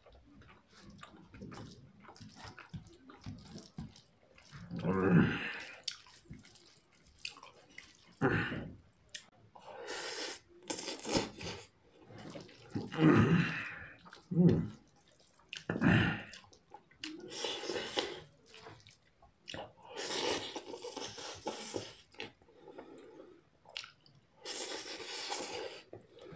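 A person eating noodles close to the microphone: a string of separate slurps and chewing sounds with short pauses between them.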